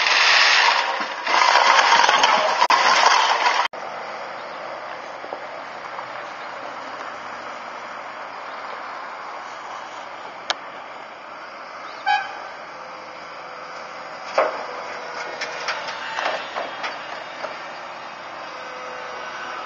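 A loud noisy sound for the first few seconds, cut off suddenly. Then a New Holland E215 excavator's diesel engine running steadily while it loads soil into a dump truck, with a short toot about twelve seconds in and a run of thumps and clatters from soil and the bucket hitting the truck's steel bed near the end.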